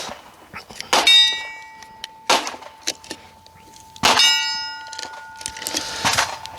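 Steel range target plate struck twice, about three seconds apart, each hit leaving the steel ringing for a second and a half or more. Two shorter sharp cracks without ringing fall between and after the hits.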